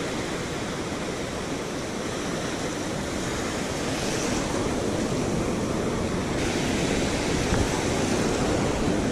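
Ocean surf breaking and washing up the sand in a steady rush of foam, swelling a little louder about three seconds in as a wave runs in around the feet.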